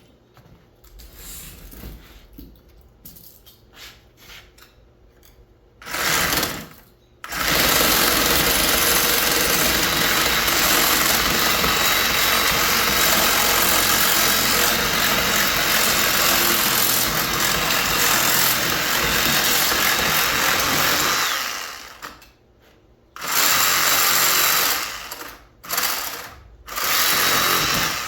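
Power tool running in bursts: a short one about six seconds in, a long run of about fourteen seconds, then three short bursts near the end, after a few seconds of quiet handling.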